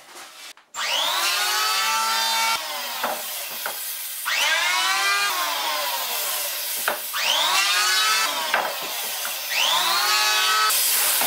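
Cordless electric hand planer cutting a chamfer along the edge of a mahogany board. It starts about a second in and runs in several passes, its whine rising at the start of each and dipping between them.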